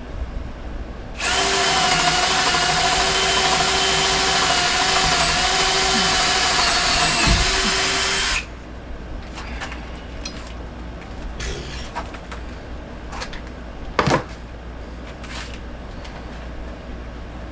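Power drill running steadily for about seven seconds with a high motor whine, then stopping; scattered clicks and knocks follow, with one sharp knock near the end.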